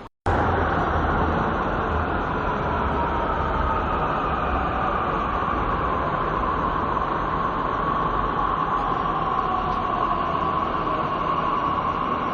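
Metro train running, heard from inside the car: a steady rumble with a high whine that dips slightly in pitch over the first several seconds and then holds steady.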